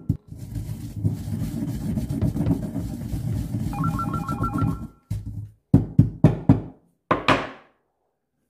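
Stone pestle grinding whole spice seeds into a coarse powder in a stone mortar. A continuous gritty crunching runs for about five seconds, then come half a dozen separate knocks of the pestle before it stops. A short electronic ringing tone sounds briefly about four seconds in.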